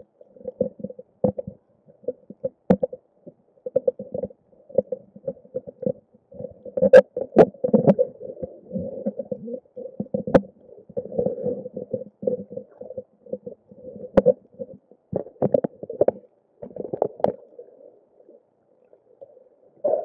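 Muffled underwater sound picked up by a camera in a waterproof housing: irregular gurgling and sloshing of water against the housing, with a few sharp knocks.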